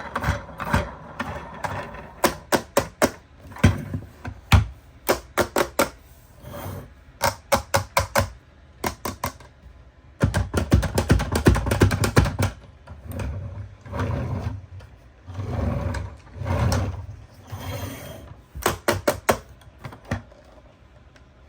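Quick runs of sharp clicks and snaps, with stretches of rustling and scraping, as a plastic toy and its packaging are handled and taken apart during unboxing.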